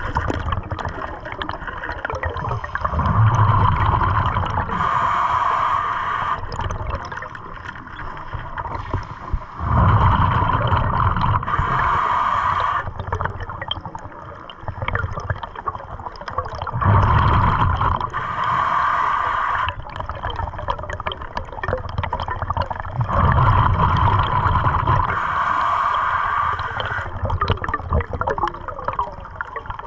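A diver breathing through a regulator underwater: exhaled bubbles rumble and gurgle out in a surge about every seven seconds, four breaths in all, with quieter stretches between them.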